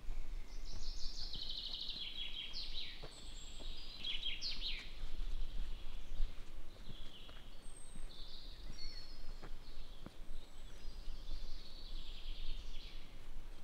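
A songbird singing fast trilled phrases that fall in pitch: two strong phrases in the first five seconds, then more from about eight seconds on. A few faint footfalls sound underneath.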